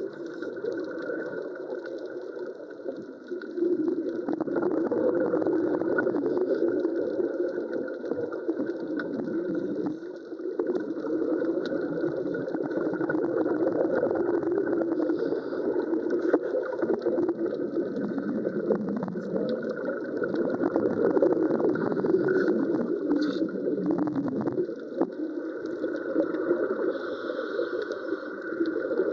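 Underwater wet welding: a steady crackling and bubbling from the welding arc under water, dropping off briefly a few seconds in and again about ten seconds in.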